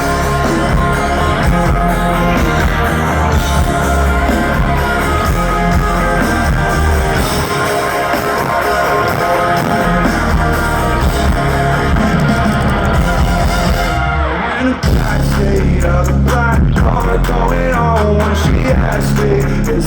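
Live rock band playing loud, with electric guitar and drums. About three-quarters of the way through the music drops out briefly before the full band crashes back in.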